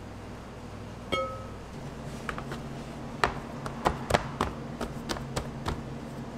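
A single short ringing clink about a second in, then a run of sharp crinkles and taps as paper sheets are peeled back off blocks of raw bluefin tuna on a tray.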